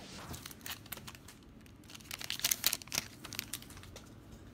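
A trading-card booster pack wrapper being torn open and crinkled as the cards are pulled out, with a cluster of sharp crackles and rustles about two seconds in.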